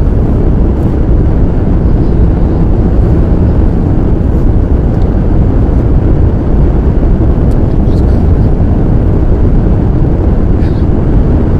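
Steady low rumble of tyre and road noise inside a car driving on a snowy highway, with a few faint clicks about eight and eleven seconds in.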